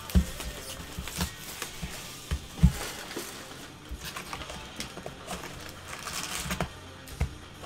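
Hands crinkling plastic wrapping and handling cardboard trading-card boxes on a tabletop, with a run of knocks and taps as boxes are moved and set down; the sharpest knock comes about two and a half seconds in.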